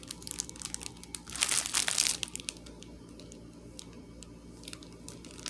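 Plastic bags of diamond painting drills crinkling and rustling as they are handled, loudest in a burst about one and a half seconds in, then fainter scattered crackles.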